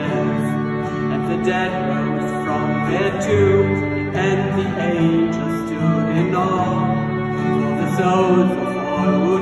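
Live trio of violin, acoustic guitar and Yamaha electronic keyboard, with a man singing the melody.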